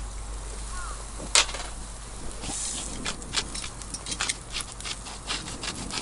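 Irregular sharp clicks and crackles at a campfire grill: one loud snap about a second and a half in, then a quick uneven run of clicks, several a second, through the second half.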